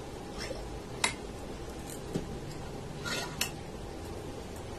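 Iron bench vise being screwed tight onto an iron bar: its steel handle bar clinks and clicks against the vise as it is turned. There is one sharp click about a second in and a few quick clinks around three seconds.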